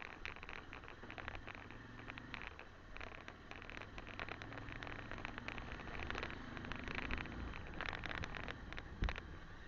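Motorcycle engine running at low speed while the bike rides over a rough dirt track, with clattering and rattling from the bumps and one sharp knock near the end.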